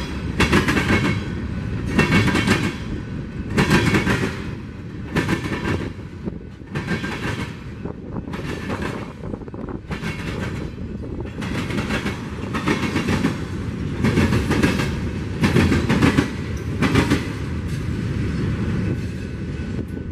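Freight train cars rolling past, with a steady low rumble and steel wheels clacking sharply over rail joints, the clacks coming again and again, roughly one or two a second.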